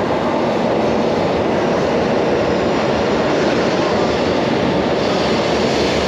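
Shinkansen bullet train pulling in alongside the platform, a steady rushing noise as its cars glide past.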